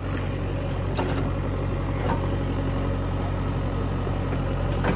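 JCB 3DX backhoe loader's diesel engine running steadily while the backhoe digs, with a few faint knocks.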